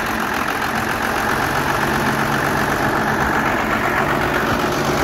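5.9 Cummins 12-valve inline-six turbo diesel running steadily at idle just after it fires up for its first start, a sign that its previously stuck P7100 injection pump rack is now free and delivering fuel.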